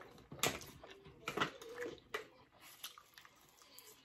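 Close-up eating sounds of people chewing food, with a few short, sharp mouth smacks or clicks in the first half, fading to fainter chewing toward the end.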